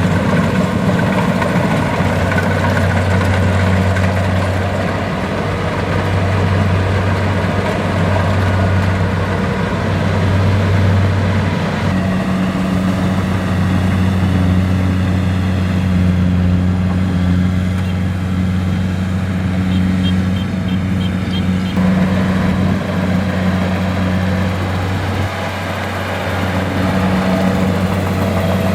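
Kubota DC-70 Plus rice combine harvester running steadily, its diesel engine droning with little change in speed.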